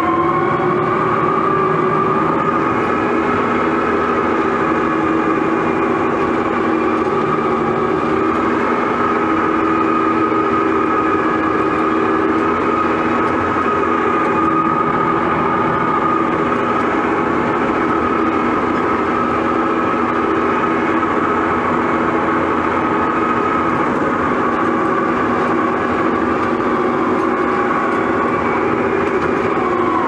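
Case 1150M bulldozer's diesel engine and drive running hard under load, heard inside the cab: a loud, steady high whine over a lower hum, rising slightly in pitch at the start and then holding. The engine is kept at high revs because the pedal is set to control track speed rather than decelerate.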